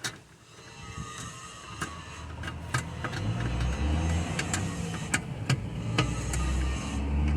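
Scattered light clicks and taps of hand work on parts, with a motor vehicle's engine rumble that comes in and grows louder from about three seconds in.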